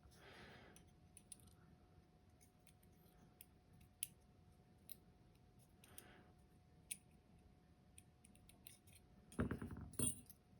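Faint, scattered clicks of tweezers and small metal lock pins as the key pins are taken one by one out of a dimple lock's plug, with a louder little clatter of metal near the end.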